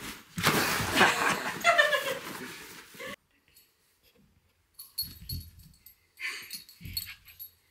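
Miniature poodle puppy whining and whimpering in breathy, rising-and-falling cries, which cut off suddenly about three seconds in. A few soft knocks follow.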